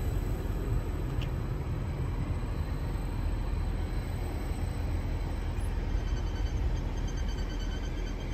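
Go-Ahead electric multiple unit rolling slowly along the platform: a steady low rumble from the running gear. From about six seconds in, faint high squeaks repeat in quick succession.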